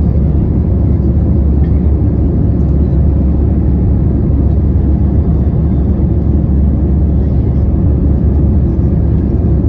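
Steady low rumble of jet engines and rushing air heard inside the cabin of an Airbus A320-family airliner climbing after takeoff.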